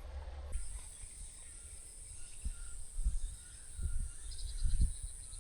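Steady, high-pitched buzz of an insect, starting about half a second in, over low rumbles and thumps of wind or handling on the microphone.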